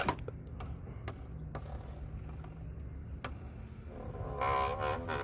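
Scattered light clicks and knocks from handling the removed oil filter cartridge and its plastic housing. Near the end comes a brief wavering, pitched sound lasting under a second, over a steady low rumble.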